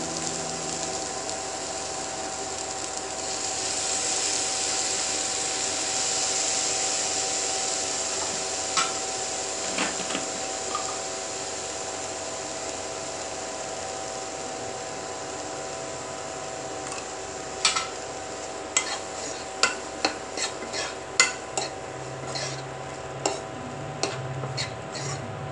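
Diced carrot in a hot non-stick kadai: a steady sizzling hiss with a faint steady hum under it. In the second half, light clicks and taps come once or twice a second as the pieces are stirred and tossed against the pan.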